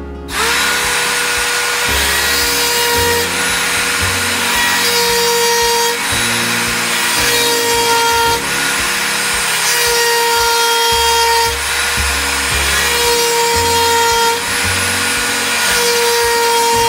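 Rotary tool fitted with a chainsaw-sharpening stone running with a steady high whine, grinding on the chain's cutters in short passes of a second or two, one tooth after another about every three seconds.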